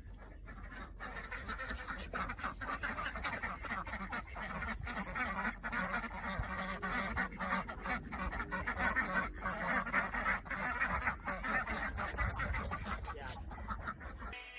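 A flock of birds calling all at once, a dense continuous chatter of many overlapping calls that builds up over the first second or two.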